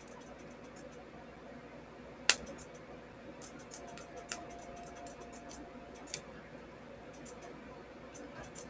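Small electrical arcs snapping and crackling as the solder-tipped positive lead of a homemade 30-volt power-supply welder is touched to a grounded steel plate. One louder snap comes a little over two seconds in, then irregular runs of faint ticks, over a faint steady hum.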